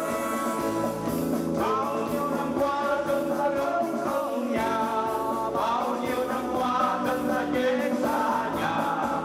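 A group of men singing together into microphones over instrumental accompaniment, with hands clapping along in time.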